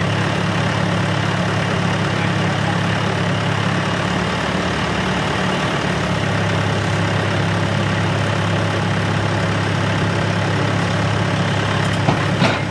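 Mahindra Turbo 595 tractor's four-cylinder diesel engine running steadily while it drives the hydraulic tipper raising the loaded trailer bed. A short knock comes twice near the end.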